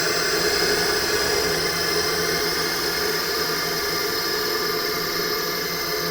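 Synthesized ghost sound effect: a steady, dense horror drone of many held tones layered over a hiss, with no rhythm or breaks.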